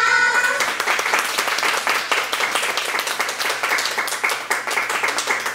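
Audience applauding: many hands clapping steadily, with the separate claps distinct.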